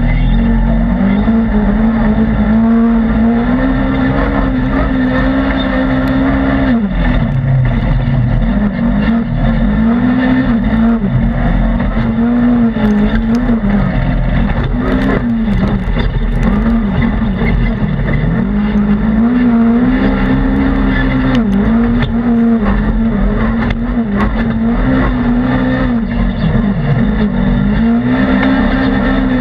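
Polaris RZR XP 1000 side-by-side's twin-cylinder engine at racing throttle, heard from inside its cab, the engine note rising and falling again and again as the driver comes off and back on the gas. Scattered clicks and knocks sound over it.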